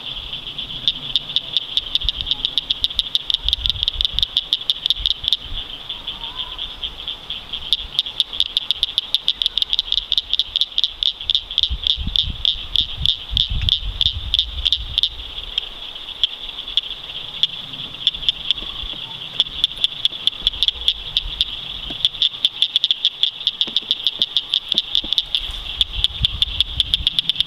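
Frogs calling in a chorus: a steady, high-pitched, rapidly pulsing trill that goes on without a break, over a low rumble that comes and goes.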